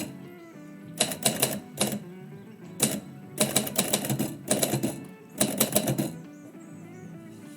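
Typewriter keys being struck in quick runs of several clacks, broken by short pauses, with background music playing under them.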